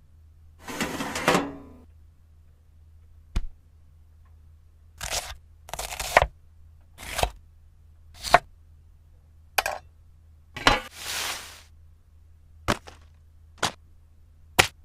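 A string of short, sharp cracks and knocks at uneven intervals of roughly a second, about ten in all, mixed with a few longer scraping or hissing bursts lasting up to a second.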